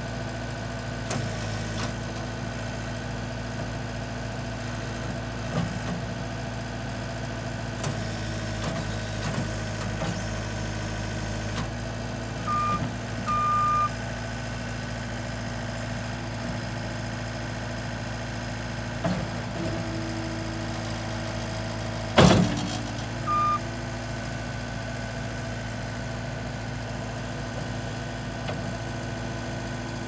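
2014 Case TR270 compact track loader's diesel engine running steadily as the loader arms are raised and lowered. Short beeps sound a little before halfway, a sharp loud clunk comes about three-quarters through, and one more beep follows it.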